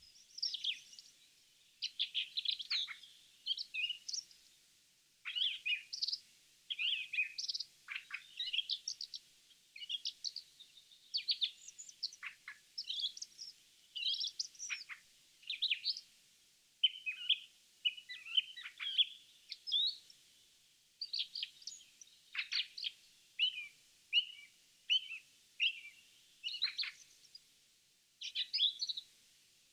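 Birdsong: small birds singing short, high chirping phrases one after another, with a few brief pauses.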